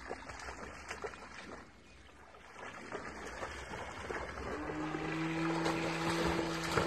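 A boxer dog swimming hard after a radio-controlled boat, the water splashing and churning around it. A steady low droning note comes in about four and a half seconds in and holds.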